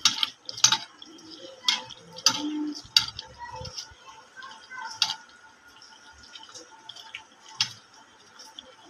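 Steel bowl clinking and knocking irregularly as chicken pieces are mixed by hand in a wet marinade, with a handful of sharp metallic clicks against the bowl.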